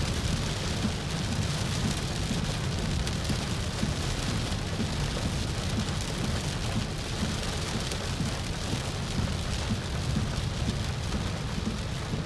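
Heavy rain beating on a moving car, heard from inside the cabin as a steady hiss over a constant low rumble of engine and road.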